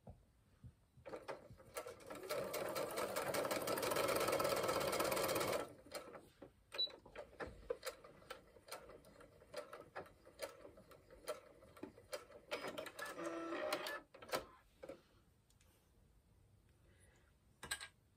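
Brother domestic sewing machine stitching: a fast, even run of stitches lasting about four and a half seconds, then slower stop-start stitches in short spurts. A single sharp click comes near the end.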